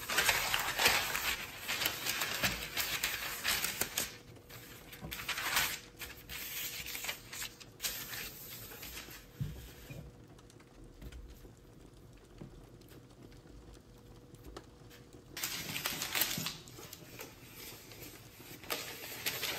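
Baking parchment being spread out and smoothed by hand on a wooden table: irregular dry rustling and crackling of stiff paper, loudest over the first few seconds, quieter for a while after the middle, then rustling again near the end.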